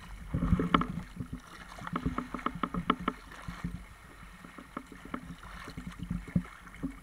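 A cocker spaniel wading and splashing through shallow seawater, with irregular close splashes, sloshes and knocks that are busiest in the first three seconds or so.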